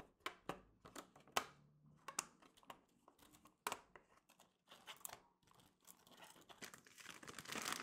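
Faint clicks and taps of a hard plastic volcano mould being handled, its parts snapped together and an elastic band fitted around them. A crinkly rustle builds near the end.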